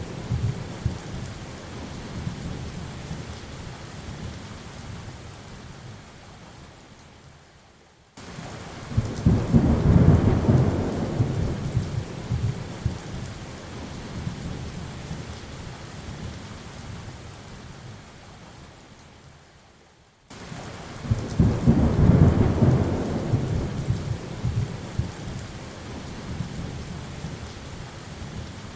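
Steady heavy rain hissing, with rolling thunder: the first roll dies away, then two more rolls come in about twelve seconds apart. Each one cuts in suddenly, swells to a deep rumble within a couple of seconds and fades slowly.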